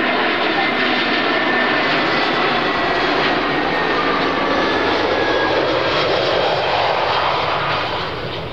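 Airliner's engines passing close by, a loud steady rush with a faint high whine that slides slightly lower in pitch, fading near the end.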